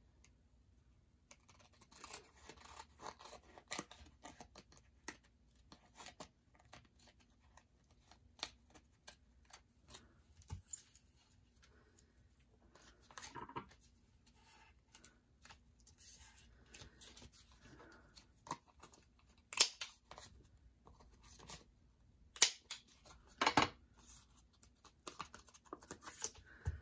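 Scissors snipping a paper doily along the edge of a paper tag, then paper rustling and sliding as the layers are handled and pressed flat. A few louder sharp taps and scrapes come in the latter half.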